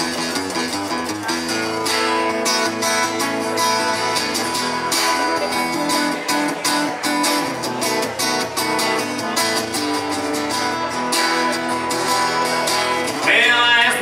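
Instrumental break of a country song played live: guitars, with notes of a lead line moving over strummed chords and a steady beat.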